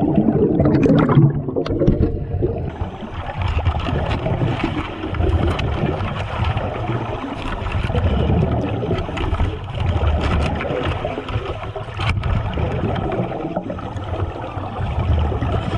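Water churning and gurgling as a great white shark thrashes against a shark-diving cage, with an occasional sharp knock.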